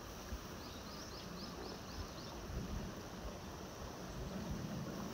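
Riverside ambience: a steady hiss of flowing river water. About a second in, a bird gives a quick run of about seven short, high notes.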